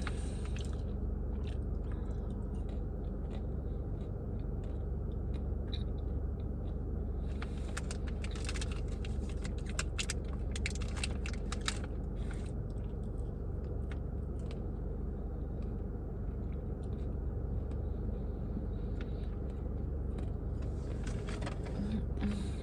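Close-up chewing and crunching of a nut-and-granola Kind bar with almonds, the crunches coming in clusters mostly around the middle, over a steady low hum.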